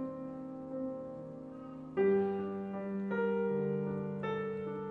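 Piano music with sustained, ringing chords; a louder new chord is struck about two seconds in, followed by further notes.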